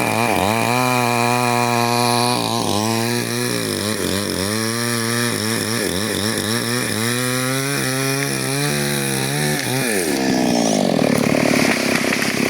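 Chainsaw running hard while cutting wood, its engine pitch wavering up and down under load; about ten seconds in the pitch drops away.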